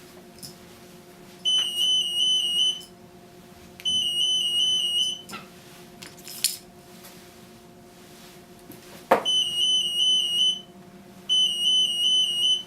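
Acoustic-magnetic (AM) EAS anti-theft system alarm going off four times, each a warbling high beep lasting about a second and a half: the mono-model system detecting a security tag. A steady low hum runs underneath, and a sharp click comes just before the third alarm.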